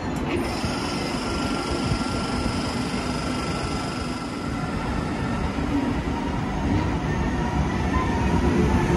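Vy Class 72 electric train moving along the platform: wheels rumbling on the rails under a thin electric whine from the traction motors. Near the end the whine rises in pitch and the train grows louder as it gathers speed.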